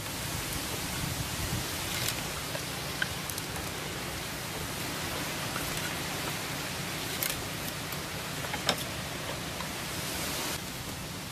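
A steady hiss with a few sharp knocks of green bamboo poles being handled and fitted. The hiss eases near the end.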